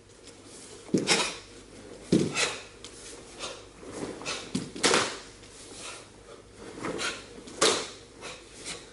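Sharp snaps of karate gi cloth and slaps of bare feet on a wooden floor as two karateka move through a kata, coming as irregular strikes about once a second, loudest about a second in, about five seconds in and near the end.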